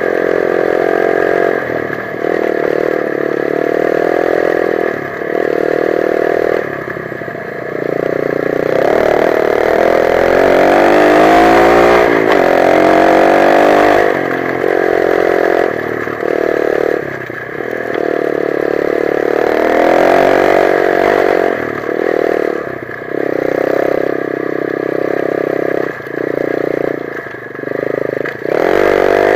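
125 cc dirt bike engine being ridden with the throttle opened and closed over and over, the pitch rising and dropping with short breaks. About ten seconds in there is one longer climb in pitch.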